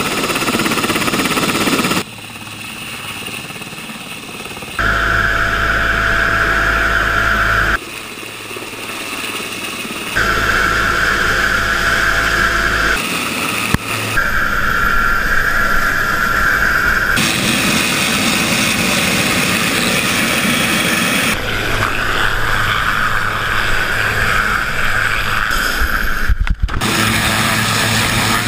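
CH-124 Sea King helicopter's rotors and twin turboshaft engines running loud and close. The sound changes abruptly every few seconds, switching between takes of varying loudness and whine.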